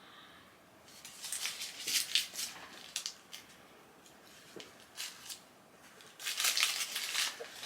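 Crinkling and rustling of a chocolate bar's wrapper as it is handled and opened, in two spells of quick crackles about a second in and again near the end.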